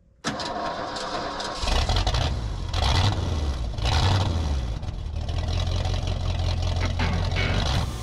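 An old Ford flatbed truck's engine being started: the starter cranks for about a second, the engine catches, revs up a few times and then settles into steady running.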